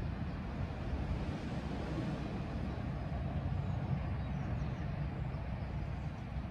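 Steady low outdoor rumble, even throughout, with no distinct knocks or calls standing out.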